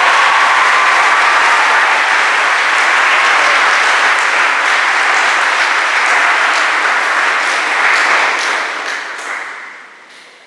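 Audience applauding in a hall. The applause holds steady, then dies away near the end.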